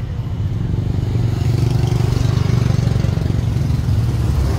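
A motor vehicle's engine running steadily, a low drone with a fine even pulse.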